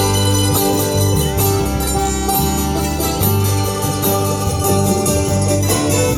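Instrumental introduction of a worship song: plucked string instruments playing over a bass line that moves to a new note about every second, with no singing.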